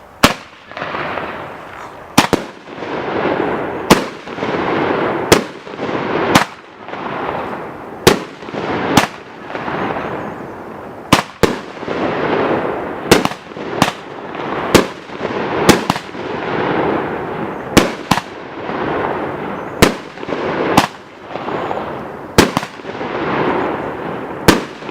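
A 500-gram 16-shot consumer firework cake firing: a string of sharp reports about every second, with a hissing rush between them.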